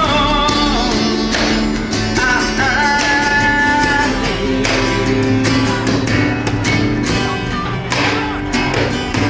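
A song with a singing voice over strummed acoustic guitar, the singer holding long notes.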